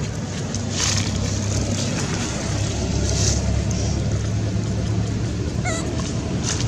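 Low steady motor-like hum with gusts of wind noise on the microphone, and a brief high chirp near the end.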